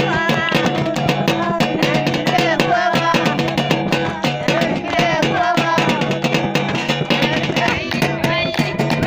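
Upbeat dance music with singing over a fast, dense drum beat and plucked strings.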